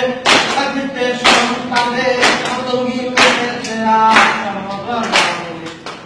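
A man singing a held, drawn-out tune while hands clap in time, about one clap a second.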